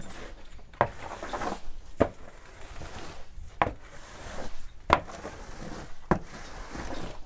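A series of sharp knocks, about one every second and a quarter, with a short stretch of scraping between the first two.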